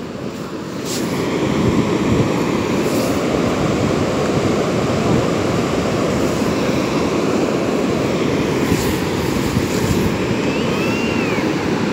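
Steady rush of ocean surf mixed with wind buffeting the phone's microphone, building in the first second and then holding level. A faint, brief high chirp comes near the end.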